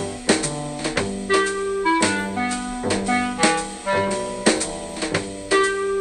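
Instrumental background music: a melody of held notes over a steady drum beat.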